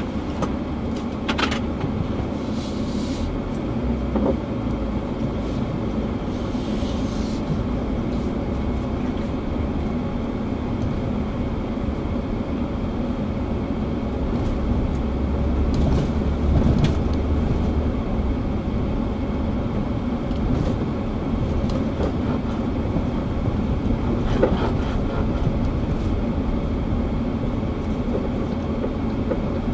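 Truck heard from inside the cab, crawling along a rough sandy dirt track: a steady low engine and road rumble with scattered knocks and rattles as it bumps over the ruts.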